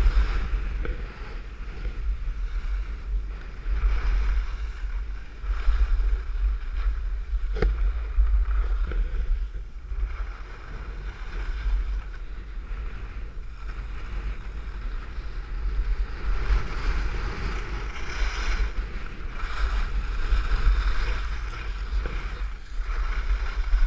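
Wind buffeting an action camera's microphone during a ski run, a heavy low rumble, mixed with the hiss and scrape of skis carving over packed, groomed snow that swells and fades with each turn. A single short knock about eight seconds in.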